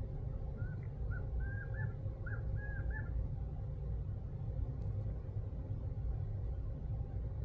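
A bird gives a quick series of about six short calls in the first three seconds, over a steady low rumble: the mother bird calling her newly hatched chicks.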